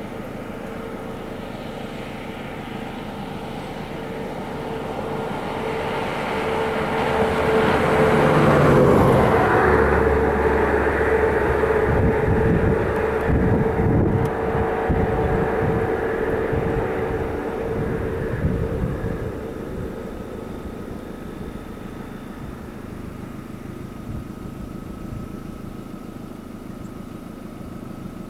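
A passing engine that rises to its loudest about eight to ten seconds in and fades away over the next ten seconds, with a steady hum underneath.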